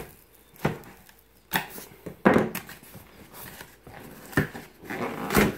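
Thick corrugated cardboard being cut and torn open by hand: a handful of short rips and scrapes at irregular intervals.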